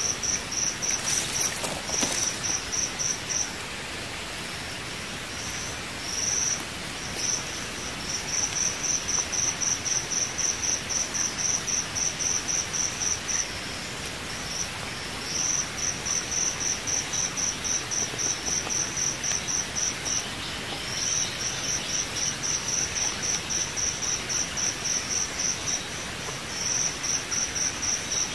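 An insect calling: trains of short, high chirps at about four a second, each train running several seconds with brief gaps between, over a steady hiss.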